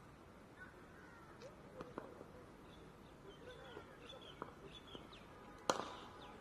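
Cricket bat striking a ball once, a sharp crack near the end, over birds chirping in the background. A few fainter knocks sound earlier.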